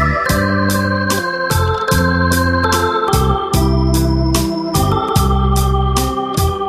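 Electronic organ playing a Korean ballad melody in held, sustained notes over a steady bass line and a built-in drum-machine rhythm with regular hi-hat-like ticks.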